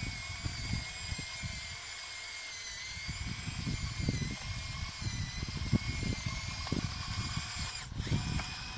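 Electric drive motors of a radio-controlled Bruder Cat D5 model bulldozer whining steadily with a slight waver as it pushes dirt. Near the end the whine breaks off briefly and comes back a little higher.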